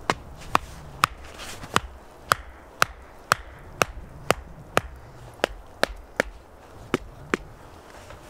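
A hatchet knocking on the top of a short wooden stake to drive it into the snowy ground. There are about fifteen sharp wooden strikes, roughly two a second, with slightly uneven spacing.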